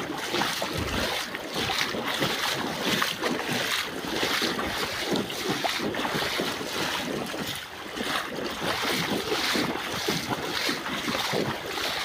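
Floodwater from heavy rain rushing fast past the bank, a steady noisy rush, with wind buffeting the microphone in low thumps.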